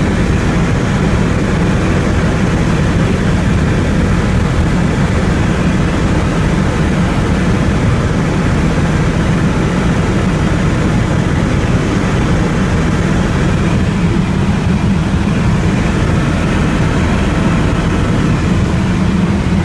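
Helicopter in flight: steady, loud engine and rotor noise, heaviest in a low hum, with no change in pitch or level.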